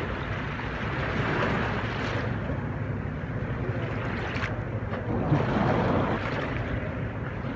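Steady rushing of a flood-swollen river, with wind buffeting the microphone.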